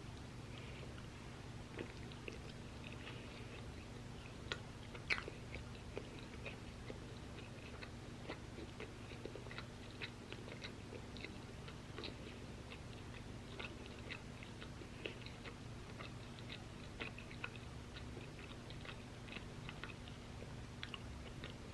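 Close-miked chewing of crispy waffle fries: a steady run of small crunches and wet mouth clicks, with a sharper bite about five seconds in. A faint steady low hum lies underneath.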